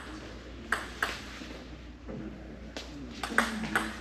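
Table tennis ball clicking off rackets and table during a rally. There are two hits about a second in, then a quicker run of hits in the last second and a half.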